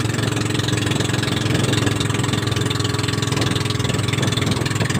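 The motor of a small outrigger boat running steadily while the boat is underway.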